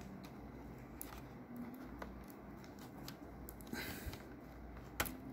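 Faint clicks and small handling noises of fingers working the cooling fan's plastic cable connector inside an opened laptop, with one sharper click about five seconds in.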